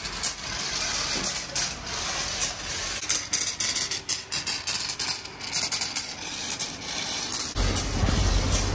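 Car wash spray hissing over a foam-covered pickup, with irregular crackles and clicks; a low hum sets in near the end.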